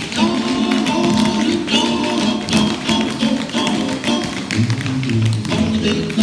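Tap shoes striking a wooden floor in quick rhythmic clicks, danced over loud recorded music that starts up at the very beginning.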